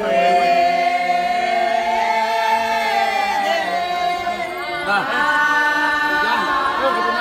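A small group of voices singing a slow chant together, without instruments. The notes are held long, and a new phrase begins about five seconds in.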